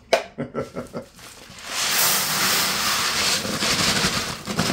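Dry rice poured from a sack into a plastic bucket: a few sharp handling knocks in the first second, then a steady hissing rush of falling grains from about two seconds in.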